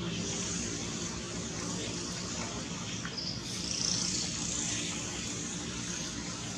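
Outdoor background noise: a steady low hum under a steady high hiss, with a few faint chirps.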